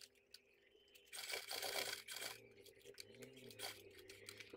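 Leather panel rustling and scraping as it is handled and turned at the sewing machine, with a burst of rubbing about a second in and a few light clicks.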